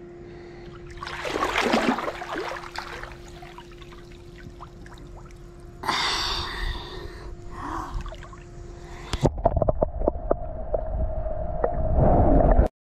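A swimmer's breathing and gasps with pool water splashing close to the camera, over a steady hum. About nine seconds in the camera goes underwater and the sound turns muffled, with bubbling and knocks that grow louder before it cuts off.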